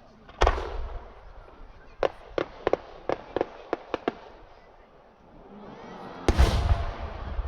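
Aerial firework shells bursting: a heavy boom with a deep rumble about half a second in, then a quick string of about nine sharp cracks over two seconds. After a swelling rush of noise, a second heavy boom comes about six seconds in. These are 7-gou (about 21 cm) art shells.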